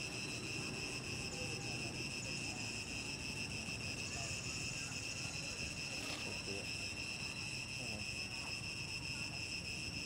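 Steady chorus of insects, crickets or cicadas, giving an unbroken high-pitched drone.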